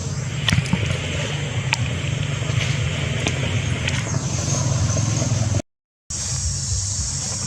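Steady low hum of a running engine, with a few sharp clicks over it. The sound drops out for about half a second near the end.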